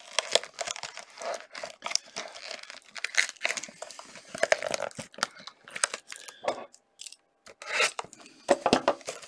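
A sealed hockey card box being torn open by hand: irregular rips and crackles of wrapper and cardboard, then crinkling as a pack is pulled out, with a short pause about seven seconds in.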